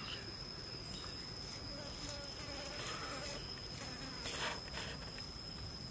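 Insects droning steadily at one high pitch, with a few brief soft scrapes as a knife slices through raw salmon.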